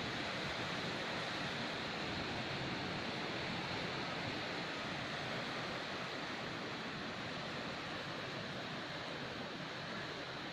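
Strong wind blowing, a steady rushing hiss that keeps an even level throughout.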